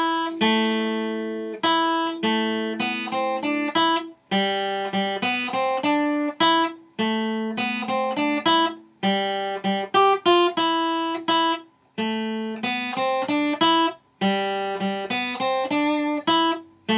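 Acoustic guitar playing a short single-note riff from the C major / A minor scale in open position, the notes plucked one at a time and ringing over open strings. The phrase repeats several times with brief breaks between.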